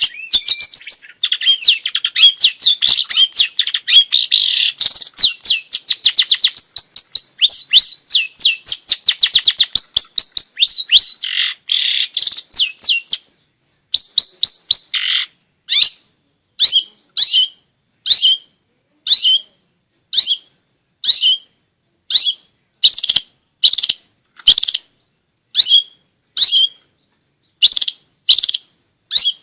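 Long-tailed shrike singing a fast, varied chattering song of dense high notes, then about halfway through switching to a string of short, harsh single calls repeated roughly once a second.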